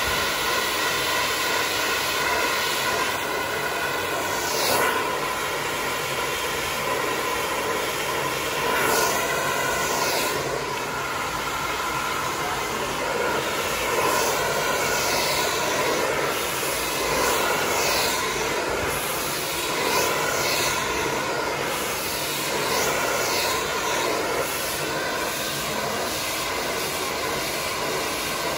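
Hand-held hair dryer running steadily, a rush of air with a motor whine through it. The air rush swells briefly every few seconds.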